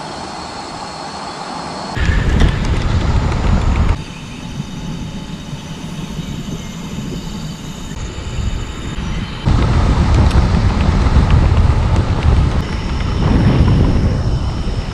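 Cicadas droning high and steady, under a loud low rumble that cuts in and out abruptly several times.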